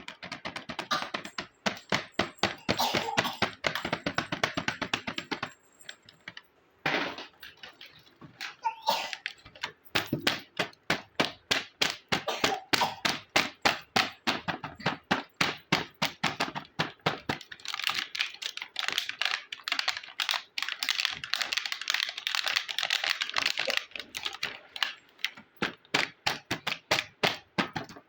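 Small plastic toy kitchen pieces clicking and tapping as they are handled and fitted together, a rapid run of light clicks several times a second. There are denser, noisier stretches near the start and again in the back half.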